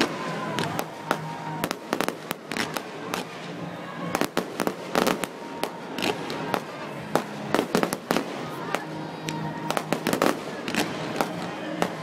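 Fireworks display: aerial shells and ground fountains going off in a rapid, irregular string of bangs and crackles, several sharp reports a second.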